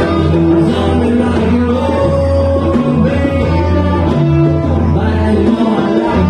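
Live band music: a didgeridoo's low steady drone under guitars and a melody line, the drone dipping briefly a few times in the second half.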